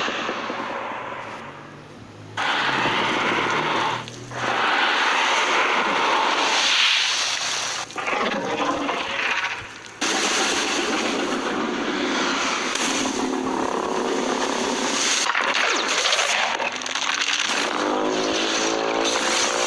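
A string of edited monster sound effects for a fan-made Godzilla: loud, noisy blasts that cut off abruptly every few seconds, then a pitched cry rising in pitch near the end.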